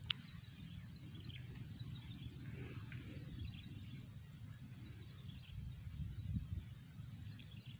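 Faint outdoor background: a low, steady rumble, with one sharp click just after the start.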